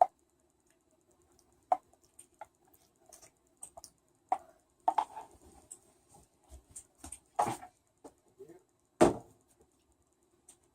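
Scattered light clicks and knocks over a faint steady hum, with two louder knocks near the end.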